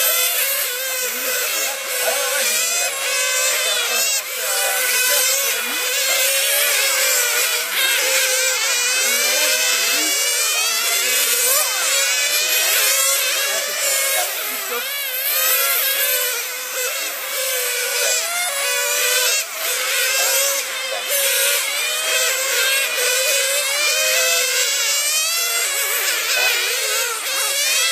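Several radio-controlled model racing cars lapping together, their small high-revving engines whining. Each one's pitch rises and falls as it accelerates and brakes through the corners, and the whines overlap without a break.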